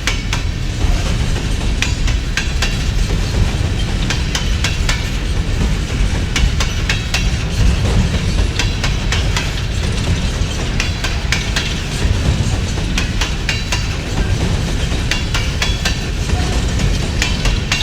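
Empty coal hopper cars of a BNSF coal train rolling past, a steady low rumble with many sharp clicks and clanks from the wheels and cars.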